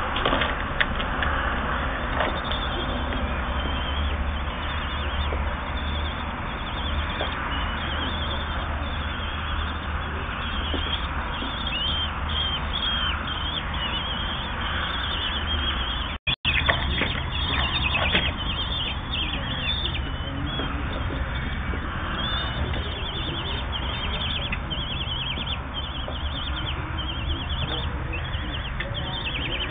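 Common kestrel nestlings giving rapid, repeated high begging calls while the female feeds them at the nest. The calls grow busier about halfway through and sit over a steady hiss and low hum. The sound cuts out briefly about 16 seconds in.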